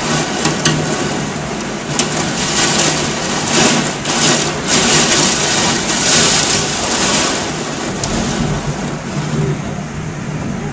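Downburst storm: torrential wind-driven rain lashing against a window in surging gusts, heaviest in the middle and easing toward the end, with a few sharp ticks.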